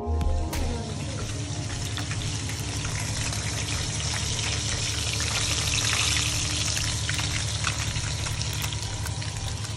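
Fish steaks frying in hot oil in a pan: a steady sizzle full of small crackles and spits.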